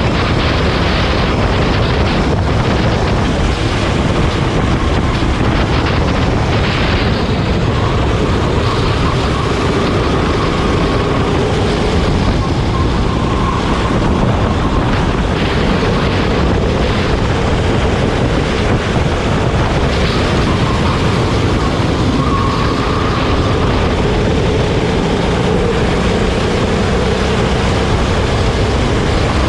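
Go-kart engine running flat out during a race, its pitch rising and falling as the kart speeds up and slows, over a loud steady rush of noise.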